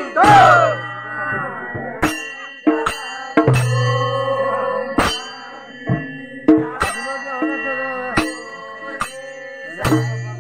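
Folk percussion for a hill Holi song: metal struck in an uneven beat, each strike ringing on, with a deep drum-like note now and then. A last sung phrase trails off at the start.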